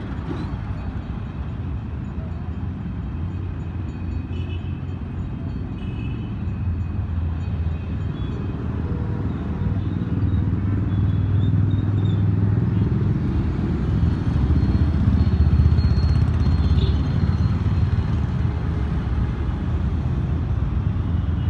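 Road traffic going past: cars, auto-rickshaws and motorcycles driving by, a continuous engine and tyre rumble that swells loudest a little past the middle.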